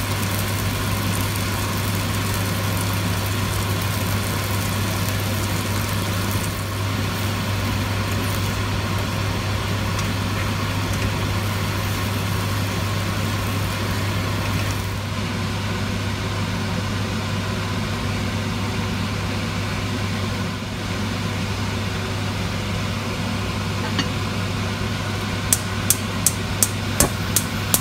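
Prawns sizzling in hot oil and sauce in a wok as they are stirred with a spatula, over a steady low hum. Near the end, a quick run of about seven sharp clicks, about four a second.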